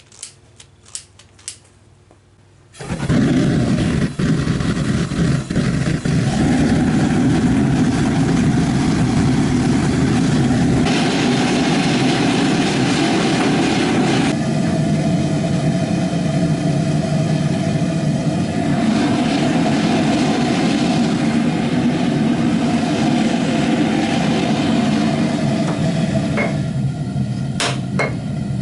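A few light clicks, then a forge starts abruptly about three seconds in and runs with a loud, steady rushing noise that shifts in tone a few times. A few sharp metallic strikes come near the end.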